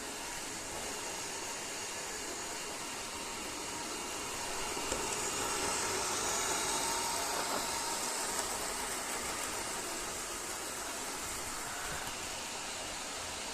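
eufy X10 Pro Omni robot vacuum running across the floor with a steady hiss from its suction and brushes. It gets louder for about four seconds in the middle, then settles back.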